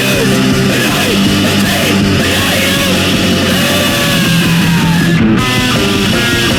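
Loud heavy metal with distorted guitar over drums. Gliding notes bend through the middle of the passage. A little after five seconds the high end of the mix drops out briefly, then short stepped high notes come in.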